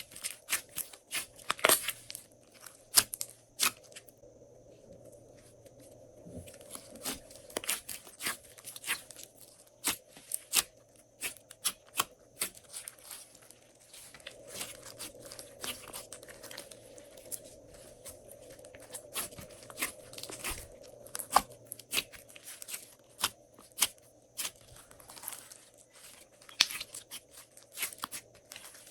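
Glossy slime being squished and stretched by hand, giving irregular sticky clicks, pops and crackles, with a couple of brief quieter pauses.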